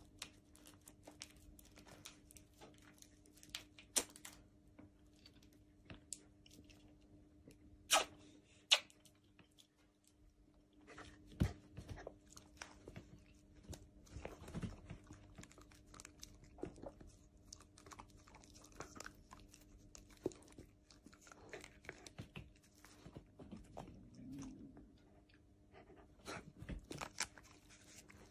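Shiba Inu licking and chewing konjac jelly from a squeeze pouch: irregular wet smacking and clicking of its mouth, with a few sharper clicks and a faint steady hum underneath.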